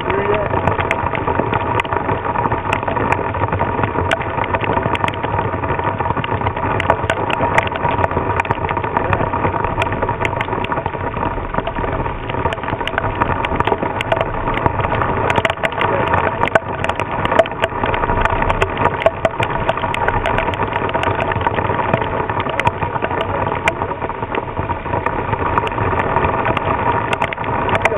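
Squall wind of about 35 mph buffeting the microphone together with heavy rain: a loud, steady noise scattered with many small crackles.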